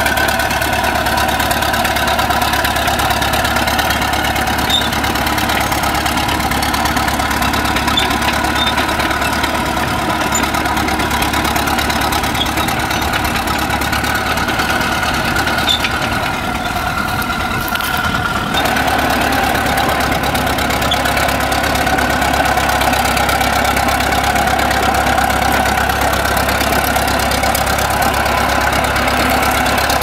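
Caterpillar D7 crawler dozer's diesel engine running steadily as the machine crawls along, its note changing briefly a little past halfway.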